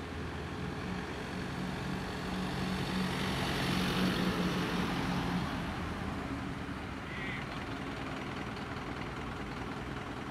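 Ford Transit van engine running as the van drives slowly past, growing louder to a peak a few seconds in and then fading as it pulls away.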